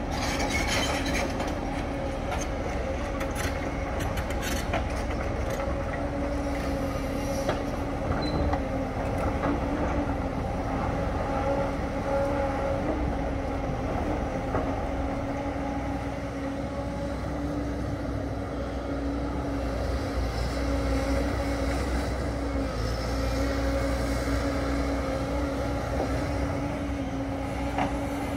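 Tracked excavators running at a steady working pitch, with a constant hydraulic whine over the engine rumble. A few knocks and clatters of rock in the first few seconds.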